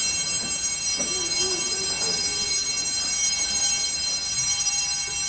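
Bells ringing continuously: a dense, steady, high ringing that holds at one level without fading.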